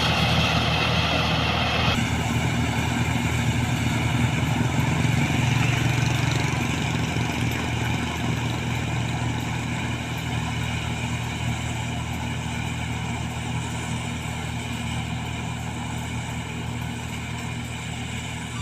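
Combine harvester's diesel engine running steadily, growing gradually fainter.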